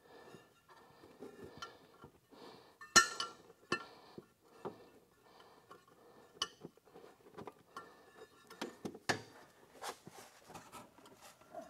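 Scattered metallic clicks and clinks as a grease gun is worked onto the Zerk fitting of a Yamaha G16 golf cart's secondary clutch to give it a shot of grease, the sharpest click about three seconds in.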